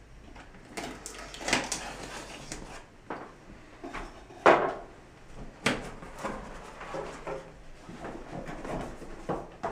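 Large cardboard computer box being handled and opened at the top: irregular rustling and scraping of cardboard with a few knocks, the loudest about four and a half seconds in.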